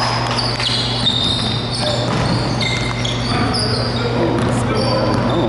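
Basketball being played on a hardwood gym court: sneakers squeaking in many short, high chirps and a ball bouncing, over a steady low hum.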